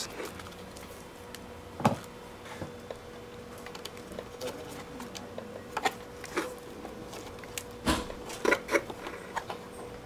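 Scattered sharp clicks and taps of hands seating cable connectors and handling the plastic and metal parts inside an opened iMac, over a faint steady tone.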